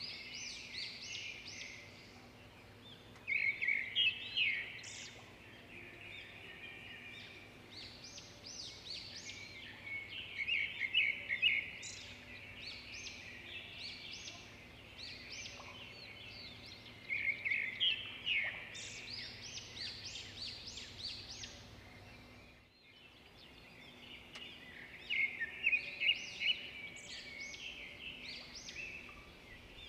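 Many small birds chirping and twittering at once, their overlapping calls swelling in louder bursts every several seconds and briefly dropping away about three-quarters of the way through.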